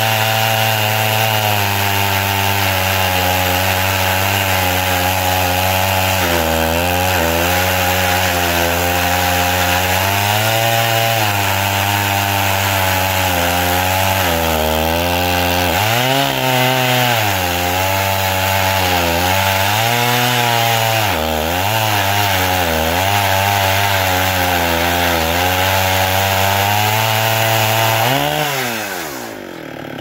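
Chainsaw at full throttle in an Alaskan chainsaw mill, ripping lengthwise through a black cherry log; the engine pitch dips and recovers again and again as it bogs under load. About two seconds before the end the pitch falls steeply as the saw winds down.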